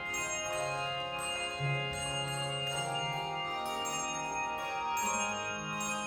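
Handbell choir ringing sustained chords, with a new chord struck every second or so while the earlier bells ring on beneath it.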